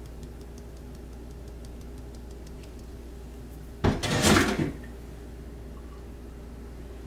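Faint light ticking of a fine mesh sieve being tapped as dry ingredients sift into a glass bowl. Just before four seconds in comes one brief loud clatter of about a second as the sieve is lifted away and handled.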